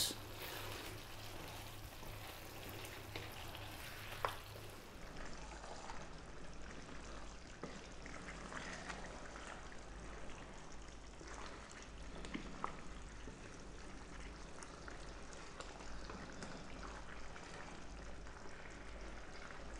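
Tomato-based chicken and potato stew simmering in a frying pan, a faint bubbling hiss, with a wooden spoon stirring through it now and then; a few soft knocks of the spoon, the clearest about 4 seconds and 12 seconds in.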